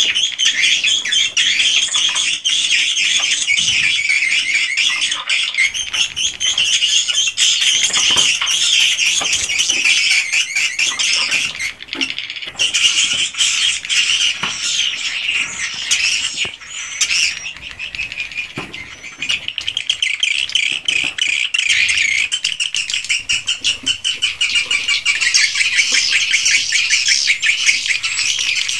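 A flock of edible-nest swiftlets calling inside a swiftlet house: a dense, unbroken chatter of chirps and rapid clicking twitters, thinning for a few seconds past the middle.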